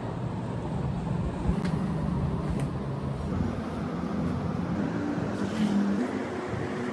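Steady low background hum, with a couple of light clicks as a plastic blender jar is handled, and milk poured into the jar near the end.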